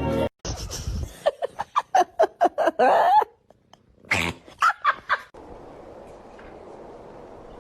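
A pet making a quick run of short, high-pitched cries, then one longer wavering cry, and a few more short cries a second or so later.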